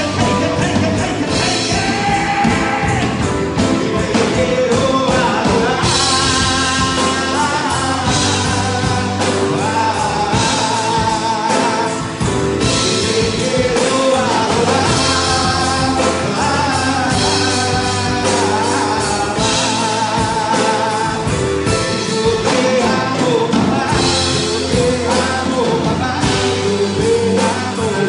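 Live worship band playing a rock-style song on electric guitars and drum kit, with a man singing the lead into a microphone in a large hall.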